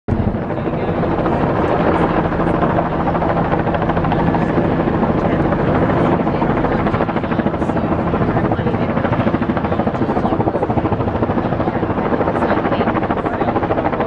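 A loud, steady mechanical drone with a fast, regular chop, holding evenly throughout.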